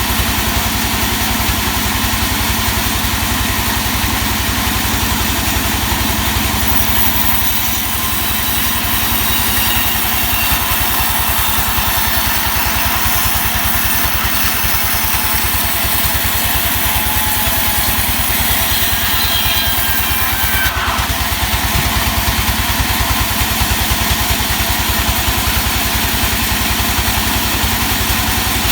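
Sawmill machinery running steadily: an engine with a fast, even beat under a high, noisy whirr, with a faint falling whine about twenty seconds in.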